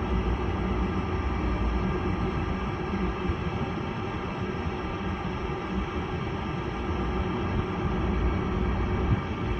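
Gas furnace's draft inducer motor running steadily with a low hum, at the start of the furnace's ignition sequence on a call for heat.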